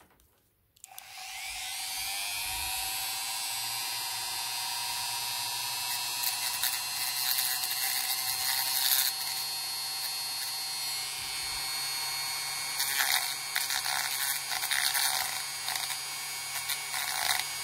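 Small handheld rotary tool spinning up about a second in, then running at a steady high whine as its bit drills into the axle ends of a die-cast toy truck to free the wheels. Rougher grinding spells come where the bit bites into the metal.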